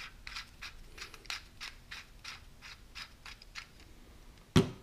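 Small metal parts being screwed together by hand: a run of short rasping scrapes at about three a second as the threads turn. One sharp knock near the end.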